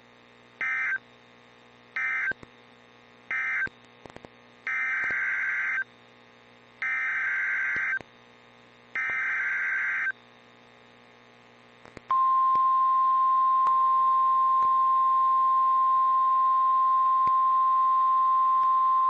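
Emergency Alert System signalling on NOAA Weather Radio: three short end-of-message data bursts, then three longer SAME header data bursts announcing the next warning, each a harsh digital warble. About 12 seconds in, the steady single-pitch 1050 Hz weather-radio alert tone starts and holds.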